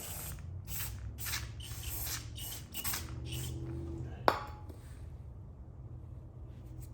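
Aerosol carburetor cleaner sprayed in short hissing bursts, about two a second for some four seconds, onto the dirty electric choke of a carburetor. A single sharp click follows about four seconds in.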